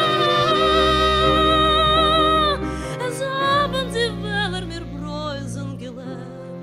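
A woman singing a long held high note that stops a little over two seconds in, then going on in a wavering, ornamented melodic line, over low held notes from a bowed double bass.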